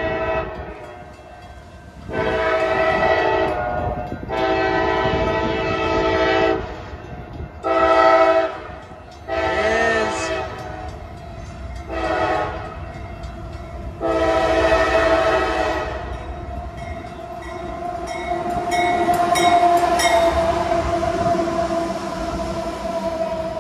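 CSX freight locomotive air horn sounding a series of blasts, long, long, then three short, then a long one, the warning for the grade crossing just ahead of the station. Then the diesel locomotives roll past close by, loudest a few seconds from the end.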